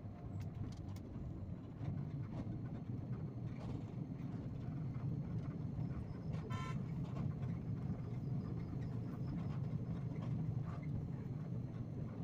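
A moving bus's engine and road rumble, steady, heard from inside the cabin. About halfway through, a vehicle horn gives one short toot.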